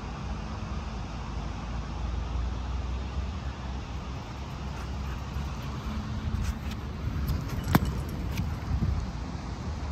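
Steady low rumble of road traffic and wind on the microphone, with a few light clicks and one sharp knock about three-quarters of the way through.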